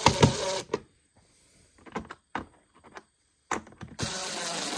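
Power drill whirring in two short runs, one at the start and one near the end, driving a screw into the air box cover. The screw hole's thread is stripped, so the screw has little to bite into. There are a few light clicks between the two runs.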